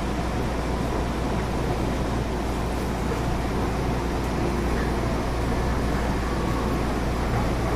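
Steady running noise of a Tobu 30000 series electric train heard from inside the passenger car: a constant low rumble and hum with wheel and track noise.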